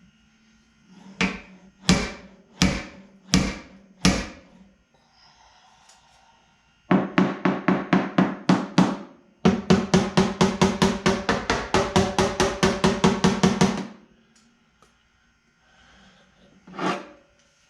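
Body hammer striking thin automotive sheet metal while a dent is worked out: five separate blows about two-thirds of a second apart, then rapid runs of taps at about six to eight a second, and one last strike near the end.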